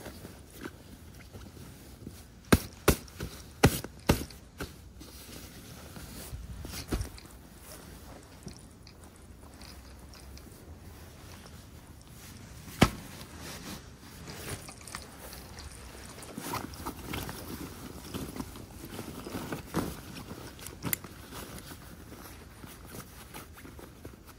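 A packed canvas tent bag being handled, its webbing straps pulled and the fabric rustling. There are four sharp clicks in quick succession a few seconds in, a single click near the middle and another near the end.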